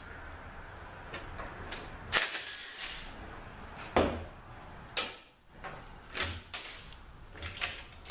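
Metal transmission parts and hand tools clunking and clattering during a THM-125C automatic transmission teardown, about seven separate sharp knocks.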